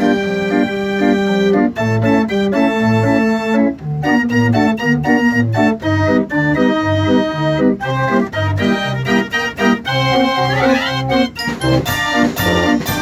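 Fairground organ playing a tune: held chords over a bass line that steps between notes about twice a second, with a quick rising run of notes about ten and a half seconds in.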